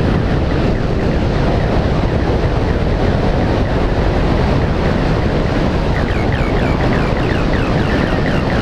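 Loud, steady rush of wind on the microphone mixed with engine noise, heaviest in the low end. From about six seconds in, a run of short falling chirps sits on top of it.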